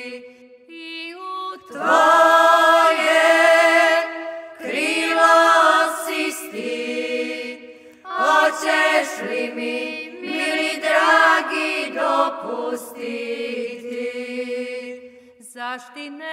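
Unaccompanied group of women singing a slow traditional Šokac folk song together, several voices drawing out long held notes phrase after phrase, with a soft start and then a fuller, louder entry about two seconds in.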